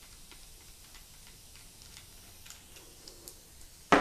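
Faint, scattered light ticks of an Astro 1450 plus nut tool's threaded mandrel being backed out of a freshly set brass plus nut, then one sharp knock near the end.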